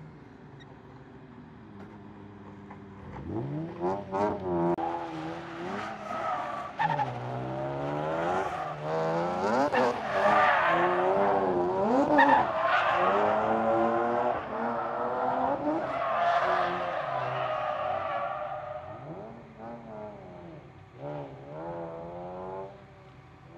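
A drift car's engine revving up and down hard through a drift, with the tyres squealing as it slides. The engine is low at first, picks up about three seconds in, is loudest through the middle, and dies back near the end.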